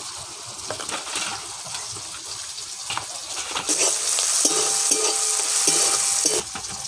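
Onion, ginger-garlic paste and tomato masala frying in oil in a kadai, sizzling as a metal spatula stirs and scrapes it. A few scrapes and taps come first; the sizzle turns loud about three and a half seconds in and cuts off suddenly near the end.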